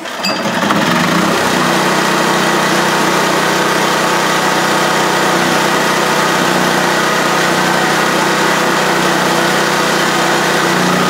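Small Pro Force portable generator engine (about 5.5 hp) comes in about a second in and runs steadily under load from a 1500-watt space heater. It holds its speed, keeping up with the load.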